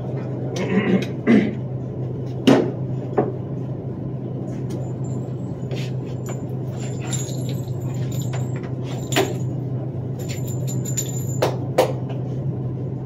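Steady low hum with about ten scattered sharp clicks and knocks, the loudest about two and a half seconds in: pistols and magazines being handled while cartridges are loaded into magazines.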